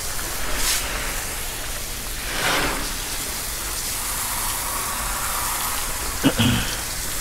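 Steady hiss of water spraying from a garden-hose watering wand onto a truck's undercarriage and wheel well, like heavy rain on metal, swelling briefly about two and a half seconds in. A short knock sounds near the end.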